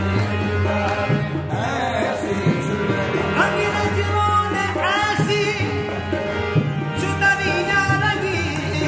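Qawwali: a male voice singing ornamented phrases that glide up and down, over steady held notes and hand-drum strokes.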